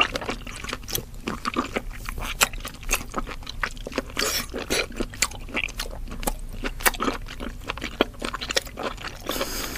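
Close-miked mukbang eating sounds of a person chewing soft boiled octopus: a steady run of irregular mouth clicks.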